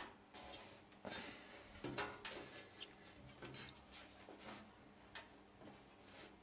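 Faint, intermittent rustling, rubbing and light knocks of electrical tape being handled and pressed into place inside a PC case.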